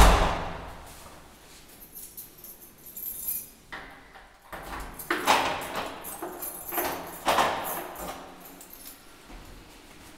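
A wooden front door pulled shut with a loud bang, then keys jangling and rattling in the door lock as it is locked, with a couple of louder clacks about five and seven seconds in.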